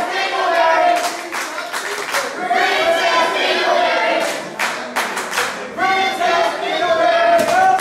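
Small wrestling crowd chanting in unison, with scattered hand claps mixed in.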